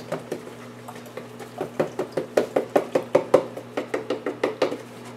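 Quick run of knocks and taps against a plastic pail, about five a second through the middle, as a box of baking soda is emptied into warmed hydrogen peroxide and worked in by hand.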